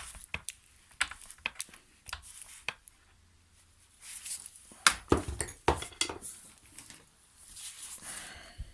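Small metal clicks, clinks and taps from handling the hedge trimmer's metal gearbox and tools while grease is packed into the drive gears. A cluster of knocks comes about five seconds in, and a short scraping rustle near the end.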